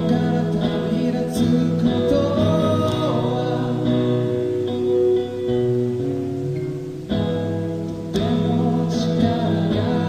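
A band playing a slow song: guitar chords held and strummed, with a voice singing.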